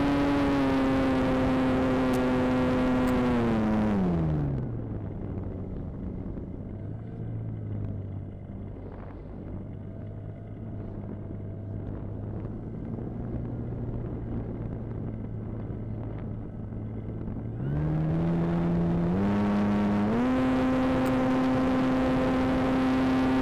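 Volantex Phoenix 2400 motor glider's brushless electric motor and propeller, heard from the onboard camera: a steady high whine that drops away about four seconds in as the throttle comes back, a quiet low hum with air noise while gliding, then the whine rising again in steps to full power near the end.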